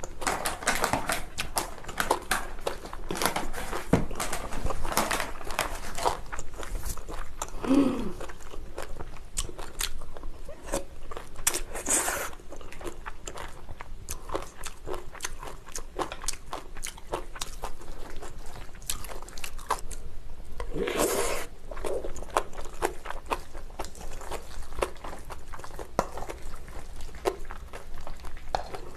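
Close-miked eating of bibimbap: chewing and crunching of mixed rice and vegetables, with many small clicks and a few short louder bursts scattered throughout.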